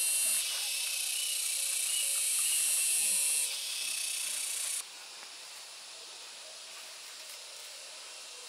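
Steady high-pitched outdoor hiss that drops abruptly in level three times, the last and largest drop about five seconds in, leaving a quieter hiss.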